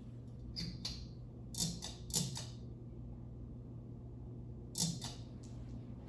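Ceiling fan pull-chain switches clicking, in pairs, four times, as the light kit is switched off and the fan motor set running, over a steady low hum.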